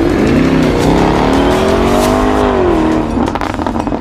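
Jaguar F-Type with a Quicksilver aftermarket exhaust accelerating past, its note rising for about two seconds and then falling away. A quick run of crackles and pops from the exhaust comes near the end.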